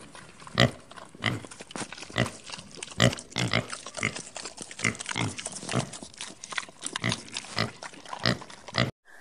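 Young wild boars grunting in short, irregular snorts while rooting for food, about one or two grunts a second. The sound cuts off abruptly near the end.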